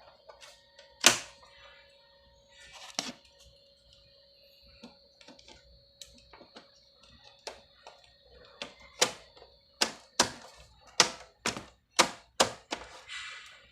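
Clicks and knocks of a desktop computer's case and parts being handled as it is put back together. There is one loud knock about a second in, then scattered lighter clicks, and near the end a quick run of about eight sharp clicks, roughly two a second.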